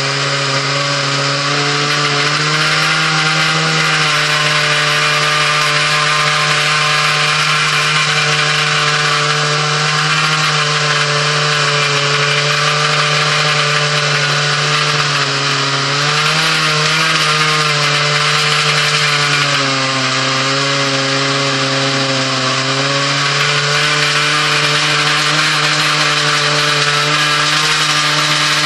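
Chainsaw mounted in an Alaskan chainsaw mill running at full throttle under load, ripping lengthwise through a log. The engine note holds steady, dipping briefly a couple of times past the middle as the chain labours in the cut.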